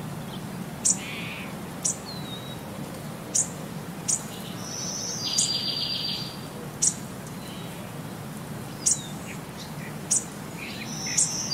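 Songbirds calling outdoors: short, sharp, high chirps every second or so, and a buzzy trill about halfway through, over a faint steady low hum.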